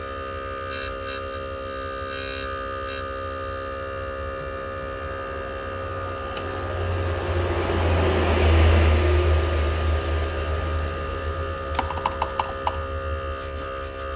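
A steady electrical hum made of several held tones, swelling louder about seven to ten seconds in, with a few light clicks about twelve seconds in.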